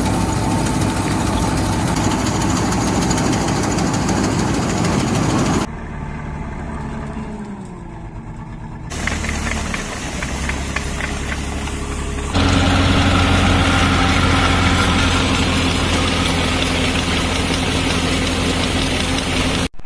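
Engine of farm machinery running steadily, heard in several clips cut together; the sound changes abruptly about six, nine and twelve seconds in.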